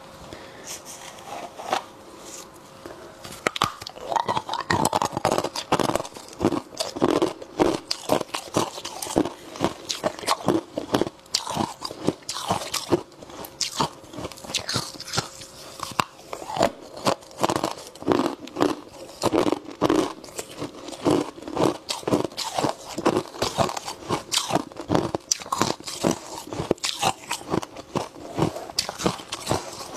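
Powdery freezer frost bitten and chewed close to a clip-on microphone: dense, crisp crunches several times a second, growing louder about three seconds in.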